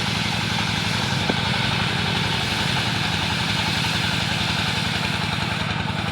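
Engine running steadily at a constant speed with an even low throb, the motor of a wood-sawing machine. There is a faint short tick about a second in.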